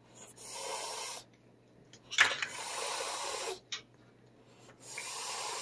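A feral cat hissing defensively with its teeth bared: three long hisses, the second opening with a sharp spit.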